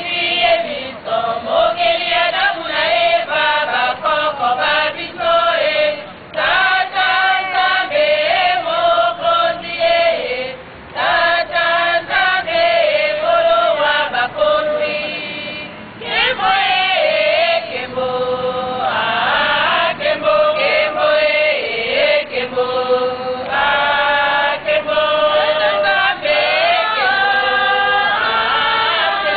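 A group of women singing a gospel song together in voices only, with a few short breaks between phrases.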